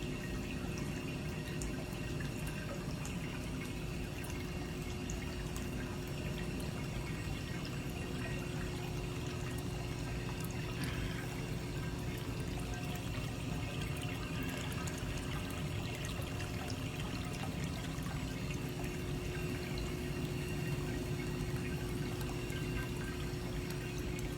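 Submersible fountain pump running under water, its outflow churning the surface in a steady splashing burble over a low, constant hum.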